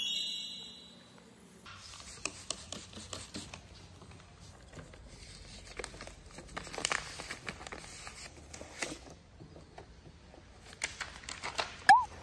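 Paper backing of a vinyl sticker crinkling and rustling as it is peeled and handled, in irregular crackly bursts. A brief high ringing tone sounds at the start, and there is a short squeak just before the end.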